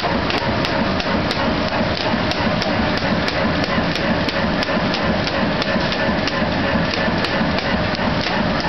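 Sanjo NS-250 label printing press running steadily. It makes a continuous mechanical clatter with sharp, regular ticks about three times a second.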